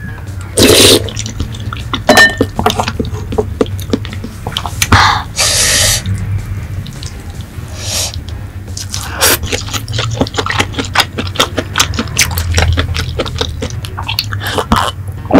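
Close-miked eating sounds: wet chewing, lip smacks and mouth clicks, with a few louder bites. Near the end come gulps of makgeolli swallowed from a bowl.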